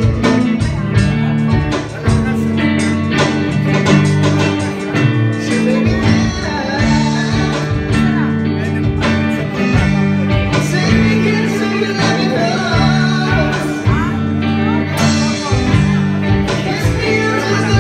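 Live band music: a Stratocaster-style electric guitar playing over bass and a steady beat.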